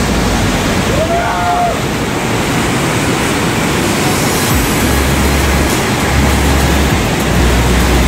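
Steady rushing roar of a large waterfall, the Awash Falls, with bursts of low rumble from about halfway through.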